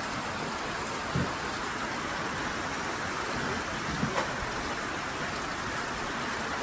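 Heavy rain falling steadily. A dull knock sounds about a second in, and two more come close together around four seconds in.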